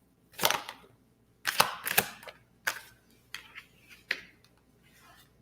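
Tarot cards being handled and drawn from the deck. A run of short, sharp clicks and slaps comes at irregular intervals, several of them bunched together a second or two in.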